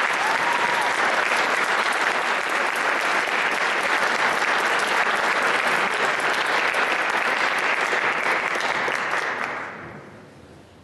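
Audience applauding a choir, steady and then dying away near the end.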